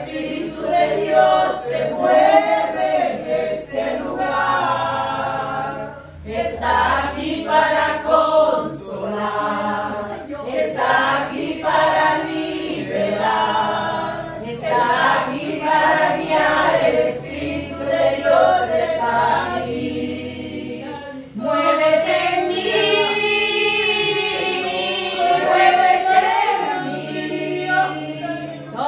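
A small group of women singing a Christian worship song together in long held phrases, with two brief dips in the singing.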